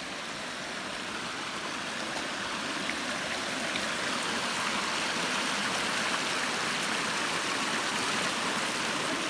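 Deep creek water running steadily, a continuous rushing that grows gradually louder.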